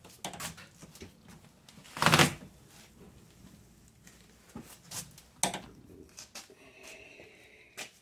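Scattered clicks and knocks of a hand tool and parts being handled inside an open car door, at the door lock actuator. The loudest is a short noisy burst about two seconds in, with sharper knocks a little after five seconds and again near the end.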